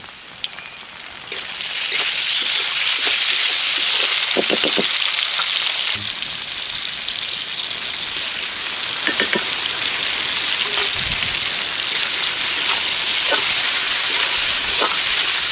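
Chopped tomatoes going into hot oil in a cooking pan: a sudden loud sizzle about a second in, then steady frying, with a few taps and scrapes of the stirring spoon against the pan.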